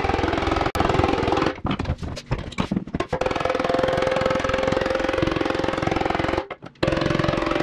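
Rapid hammering on a steel motorcycle fuel tank as knee indentations are beaten into it: a fast run of metallic blows that breaks off briefly twice.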